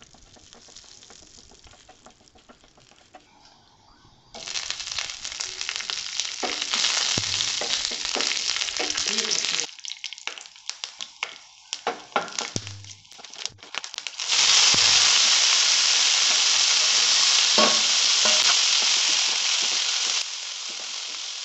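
Oil sizzling in a nonstick frying pan with frying chana dal and urad dal, and later green chillies and coriander leaves, stirred with a spatula. The sizzle is faint at first and turns loud about four seconds in. Around the middle it breaks into separate scraping strokes, and it is loudest over the last third.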